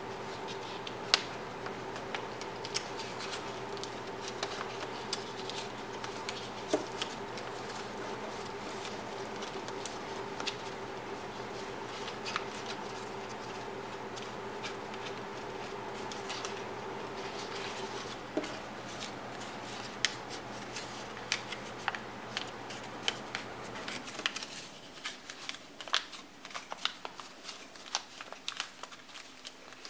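Origami paper being folded and creased by hand: irregular sharp crackles and taps of the paper, some against the tabletop. A steady background hum runs under it and stops partway through.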